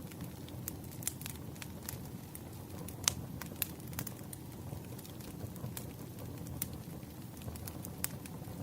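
Wood fire crackling: irregular snaps and pops over a steady low rumble, with the loudest snap about three seconds in.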